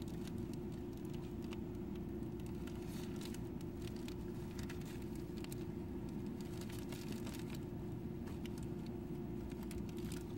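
Steady low background rumble, with faint scattered small clicks from fingers handling the ring.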